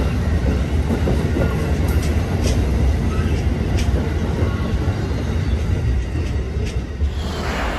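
Amtrak passenger cars rolling past at low speed: a steady low rumble from the wheels and trucks, with scattered clicks as the wheels cross rail joints, easing a little as the last car clears.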